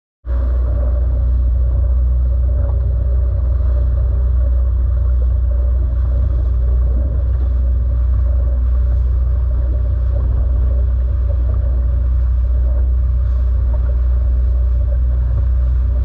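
Boat engine running steadily under way, a loud low drone, with water splashing along the hull.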